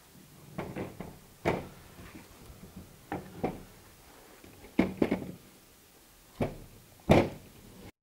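Wooden parts of a spinning wheel knocking and clunking together as the wheel base is set into its L bracket: about ten scattered thuds, the loudest near the end.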